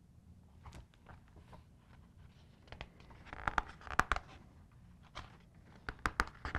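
Pages of a hardcover picture book being handled and turned: paper rustling with scattered sharp clicks and taps, the loudest about four seconds in.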